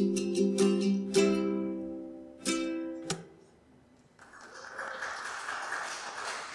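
Ukulele strummed through the closing chords of a song, with a last chord struck about two and a half seconds in and damped half a second later. After a second of near silence a steady rushing noise sets in.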